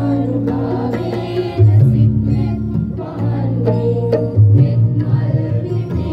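A Sinhala Buddhist devotional song (bakthi gee) performed live: a mixed group of men and women singing together over amplified microphones, with tabla and barrel-drum strokes and a bass guitar line.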